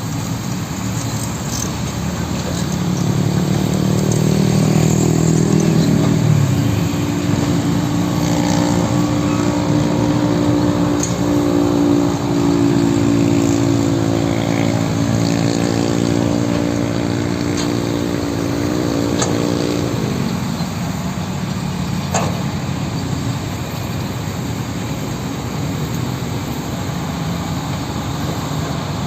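Heavy diesel engine of earthmoving machinery working: its speed rises a few seconds in, holds a steady pitch for about fifteen seconds, then drops back about twenty seconds in.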